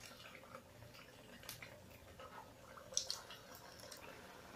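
Hot oil faintly sizzling, with scattered small pops and crackles, as aloo bhakarwadi slices are dropped in one by one to deep-fry; a sharper pop comes about three seconds in.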